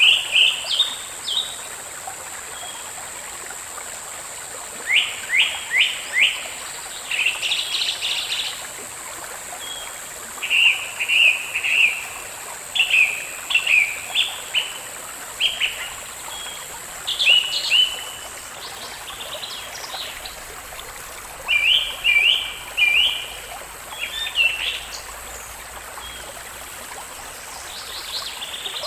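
Small songbirds chirping in short, quick phrases again and again, over a steady background hiss like running water.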